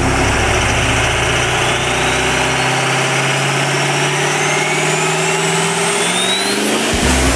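Engine revving sound effect: a vehicle engine revving up, its pitch climbing steadily for several seconds under a loud rush of noise.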